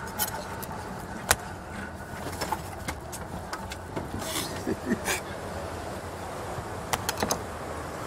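Knife clicking and scraping on a fish on a market cutting table: scattered sharp knocks, a loud one about a second in and a quick run of three or four near the end, over a steady background rumble.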